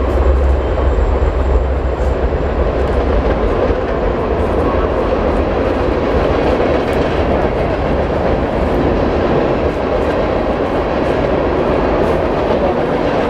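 Norfolk Southern diesel freight train crossing a steel girder bridge. The locomotives' deep rumble dies away about two seconds in, leaving the steady rolling rumble and clatter of double-stack container cars with scattered wheel clicks.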